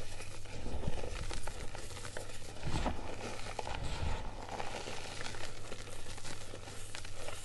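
Hands crumbling and sifting reformed gym chalk: a dry, powdery crunching and rustling with many fine crackles as lumps break and powder pours through the fingers, a little louder at a few points.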